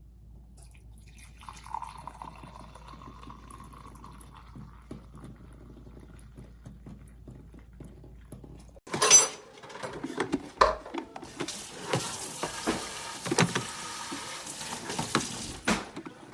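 Water running and splashing for several seconds, broken by knocks and clatter of handling; a single sharp knock comes about nine seconds in, after a quiet stretch with a low hum.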